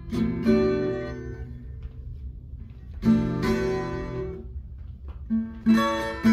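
Twelve-string acoustic guitar, capoed at the seventh fret, being played: a chord struck and left to ring at the start, another about three seconds in, then quicker picked notes near the end.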